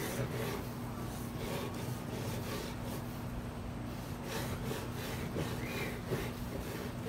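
Stone hand roller (metlapil) scraped back and forth over a stone metate, grinding sugar into cacao paste, in repeated rubbing strokes.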